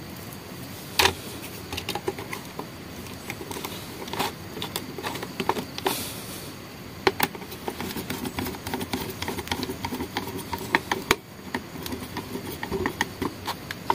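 Scattered clicks and rustles of electrical wires being handled and pushed into the terminals of a plastic two-gang, two-socket switch plate, with a quick run of small clicks near the end as a screwdriver tightens a terminal screw.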